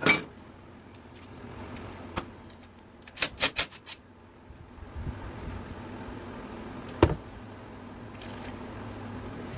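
Metal engine parts and hand tools clinking and tapping against each other during an engine teardown. There is a sharp clink at the start, a quick run of about five clinks about three and a half seconds in, and another single clink about seven seconds in, over a low steady hum.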